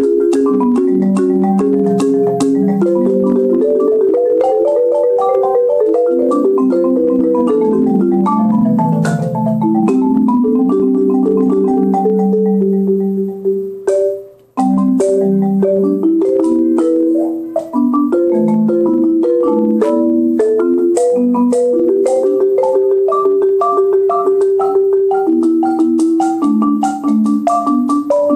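Marimba played with mallets: a steady stream of quickly struck, ringing notes in the low and middle range, with a falling run of notes about a third of the way in. The playing breaks off briefly about halfway through, then carries on.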